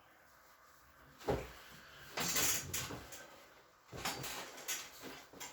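A person getting face down onto a treatment table: a knock just over a second in, then rustling and shuffling of body and clothing against the table in two spells.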